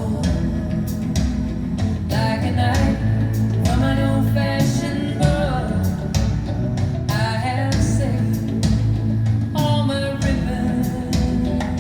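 A recorded song playing through hi-fi loudspeakers and picked up by microphones in the room: a woman singing in phrases over guitar and a steady bass line.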